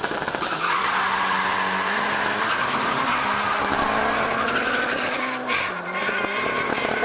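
Two drag-race cars, a VW Golf II with a 1.8 turbo four-cylinder and a second car, launching hard side by side from the line with tyres squealing, their engines revving up through the gears at full throttle. The pitch rises with a couple of drops at gear changes.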